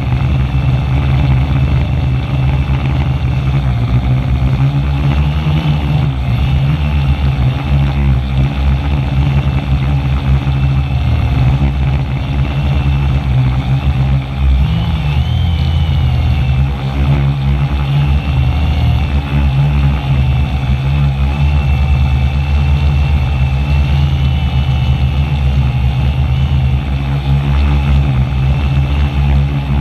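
Brushless motors and propellers of a 450-size quadcopter running close to the camera on its frame: a steady, loud hum with a wavering high whine over it.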